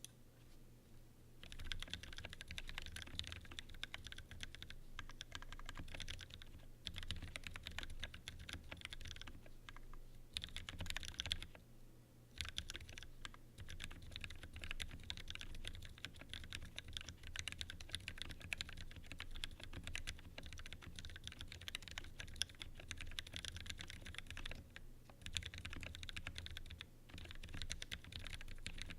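Typing on a TGR-910 RE mechanical keyboard with a polycarbonate case and vintage Cherry MX Black linear switches on 67 g springs: a fast, continuous run of keystroke clacks that starts about a second and a half in, with brief pauses now and then.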